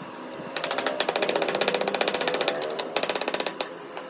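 Electric welding arc crackling in a fast, even stutter for about three seconds, with a short break shortly before it stops.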